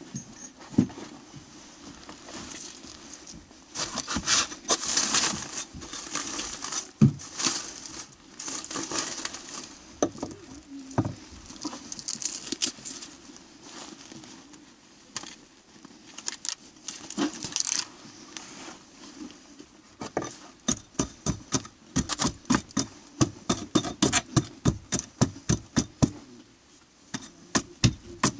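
Hands pulling at foil-wrapped chimney-pipe insulation and charred debris between wooden joists: rustling and crinkling, then many small sharp knocks coming quickly in the second half.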